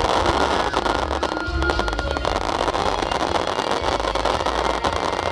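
Aerial fireworks bursting in a dense, crackling barrage with low booms, while music plays along.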